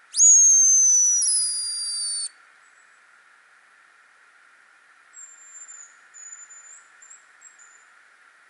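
A hazel grouse decoy whistle (homemade call) blown close up: one loud, high, thin whistle of about two seconds that slides down and steps lower partway through. A few seconds later a hazel grouse answers faintly with a short run of thin, higher whistles.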